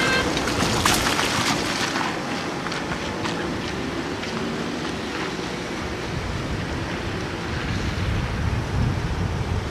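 Wind blowing on the microphone: a steady rushing noise, with a stronger low rumbling gust near the end.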